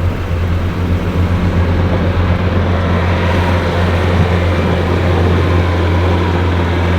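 Pickup truck engine idling, a steady low drone.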